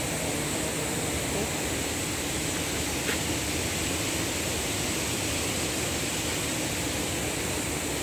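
Steady hiss of rushing water from a spring-fed stream, even throughout.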